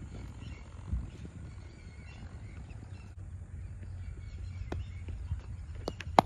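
Cricket bat striking a ball once with a single sharp crack near the end, after a few fainter knocks. A steady low rumble runs in the background.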